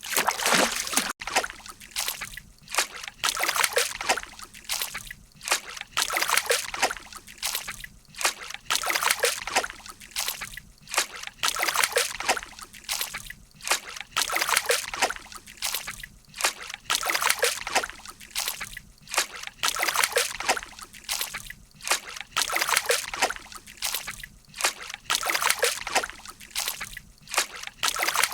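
Water splashing and sloshing in irregular bursts, several a second.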